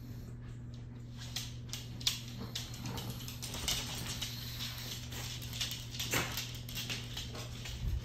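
Dogs' claws clicking and tapping irregularly on a hardwood floor as they walk about, over a steady low hum.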